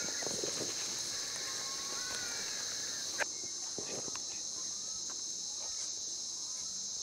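Steady, high-pitched insect drone from the bush. A few short chirps sound over it in the first two seconds, and a single sharp click comes about three seconds in.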